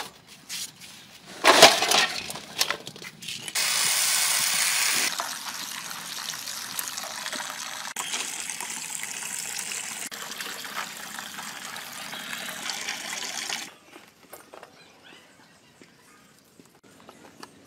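Water poured over a large metal basin of fresh red chilies as they are rinsed. A few knocks of the basin come first, then a loud gush of water about four seconds in and steady splashing and running water for about nine seconds, which stops suddenly; the last few seconds hold only faint handling ticks.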